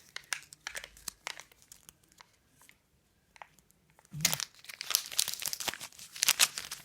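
Kinder egg toy packaging being handled and unwrapped, crinkling and tearing: scattered crackles at first, a lull in the middle, then dense crinkling over the last few seconds.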